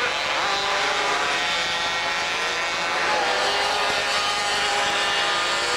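Several 50 cc two-stroke moped engines racing together, a buzzing of overlapping engine notes whose pitches rise and fall as the riders accelerate and ease off through the turns.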